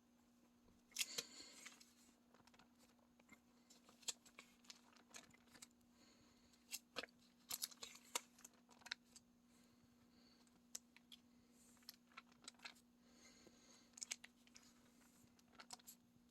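Album pages being turned and handled: faint paper rustles and scattered light clicks, over a faint steady hum.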